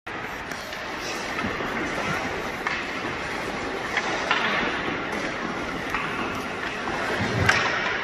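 Ice rink drill noise: steady scraping of skates on the ice with scattered sharp clacks of hockey sticks and pucks, the loudest clack about seven and a half seconds in.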